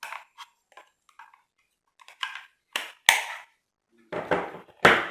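Irregular clicks and knocks of hard objects, with a sharp heavier knock about three seconds in and a cluster of louder knocks near the end.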